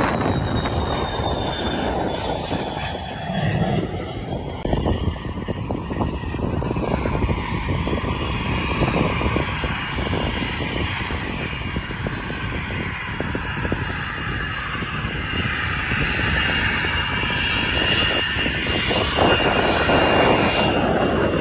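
Airplane engines running on the airfield: a steady rumble with a high whine that grows louder toward the end.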